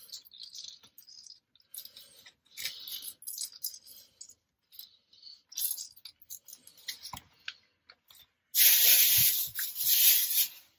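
Faint squeaks and rustles of a handheld lemon squeezer pressing a lemon half over a plastic zip-top bag. About eight and a half seconds in, loud, continuous crinkling of a thin plastic produce bag takes over.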